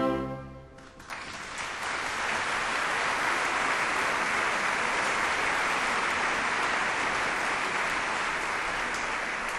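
A final held orchestral chord stops within the first second, then an audience applauds steadily.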